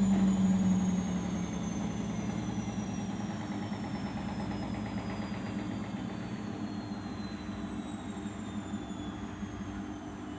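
Arçelik 5083 washing machine's drum slowing down at the end of its 800 rpm final spin. The motor whine falls steadily in pitch, a strong low hum drops away about a second in, and the running sound fades as the drum coasts down.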